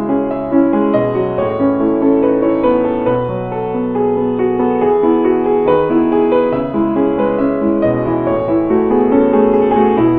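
Slow instrumental keyboard music: held piano-like chords that change about once a second over low bass notes.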